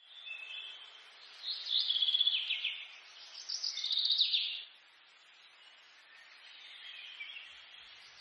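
Birds chirping and singing in a garden, with two louder bursts of rapid chirping about one and a half and three and a half seconds in.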